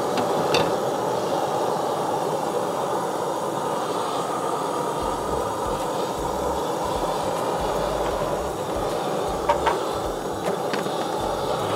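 Handheld searing torch firing at full flame, a steady rushing roar of burning gas, with a few sharp crackles from the steaks searing under it. The torch cuts off at the end.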